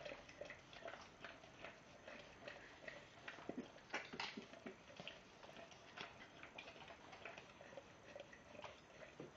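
A bull terrier licking yoghurt out of a plastic pot: faint, irregular wet clicks of its tongue against the pot, a few a second, with one louder click about four seconds in.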